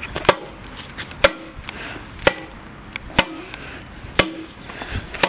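Baseball bat striking a banana on paving stones, a sharp blow about once a second, five or six in all.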